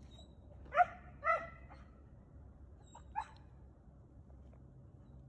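A chow chow barking up at a squirrel in a tree: two sharp barks about half a second apart, then a fainter third bark about two seconds later.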